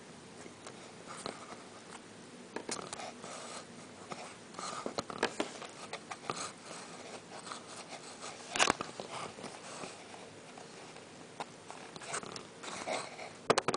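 Handling noise as a camera is repositioned by hand: scattered rustles, light clicks and bumps, with the loudest knock a little past halfway.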